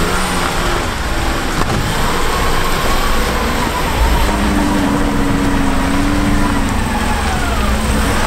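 Jeep Wrangler Rubicon's engine revving under load as it drives up a slippery off-road slope. The revs climb over the first few seconds, hold high, then drop near the end, over a loud steady rushing noise.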